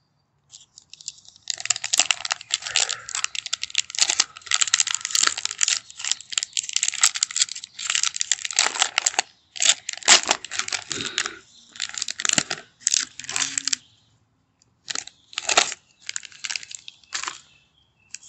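The plastic wrapper of a 2022 Topps Heritage baseball card pack being torn open and crinkled. The ripping and rustling start about a second and a half in and come in a run of bursts with short pauses, then a few shorter rustles near the end.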